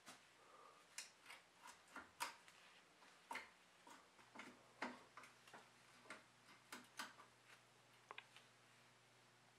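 Faint, irregular sharp clicks and ticks, about two or three a second, from a gloved hand working a mechanical disc brake caliper and its bolt-on adapter mount. The clicks stop about a second before the end.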